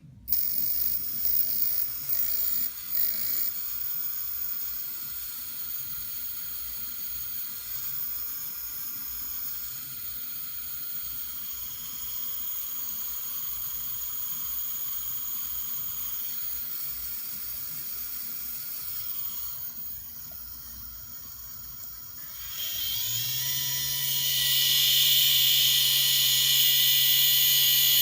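A faulty motor running with a hissing whir. About 23 seconds in it speeds up into a louder, steady high whine.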